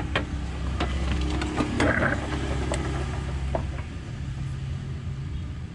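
An engine idling with a steady low rumble, with scattered sharp clinks of a metal ladle, spoons and a bowl being handled.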